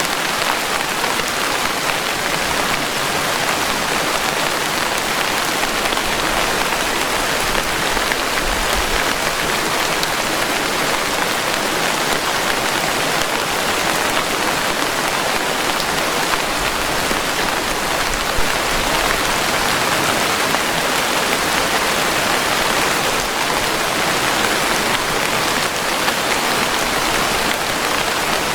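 Steady, dense rainfall: a constant, even hiss of many raindrops that neither builds nor fades.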